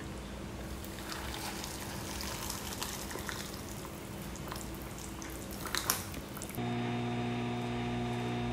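Hot water poured from a kettle into a cup of instant ramen noodles, a steady stream for several seconds. About six and a half seconds in it gives way to a microwave oven running with a steady hum.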